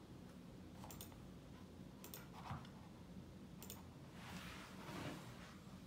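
Faint computer mouse clicks, three single clicks spaced a second or more apart as options are picked in software, over a low room hum, with a soft rustle about four and a half seconds in.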